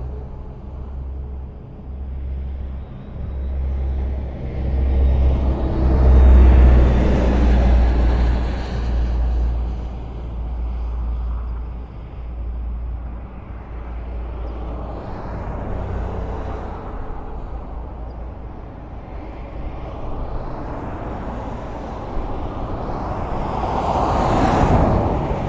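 Highway traffic: a steady low rumble of engines and tyres, with vehicles swelling up and fading as they pass, the loudest pass a few seconds in and a fast, close whoosh of a vehicle going by near the end.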